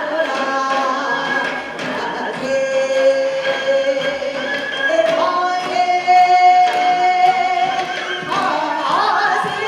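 Korean sinminyo (new folk song) sung by a sorikkun folk singer, with sliding, bending notes and one long held note in the middle.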